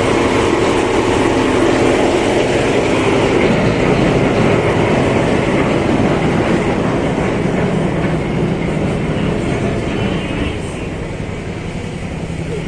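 Ferry's engine running steadily with the boat under way: a low drone with a steady rushing noise over it.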